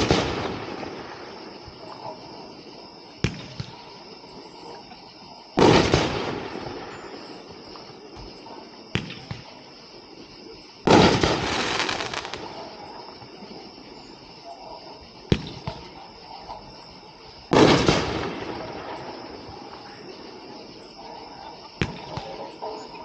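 Nine-shot 1.4G consumer firework cake firing single shots about every six seconds. Each shot is a sharp launch thump, then a couple of seconds later a loud break that fades out over a second or two.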